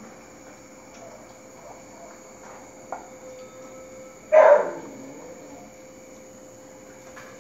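Crickets chirring steadily, with a single dog bark about four seconds in.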